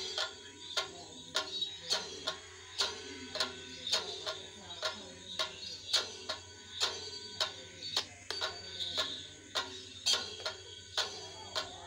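Chenda drums beating a steady rhythm of sharp strikes, about two a second, with a ringing tone held between the strikes.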